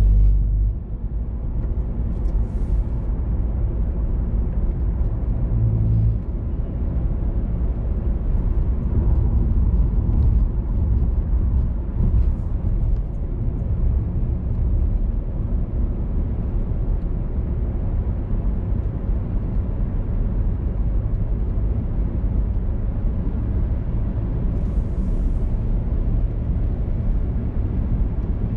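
A car driving along a road: steady rumble of tyres and engine, with a few brief hissing surges.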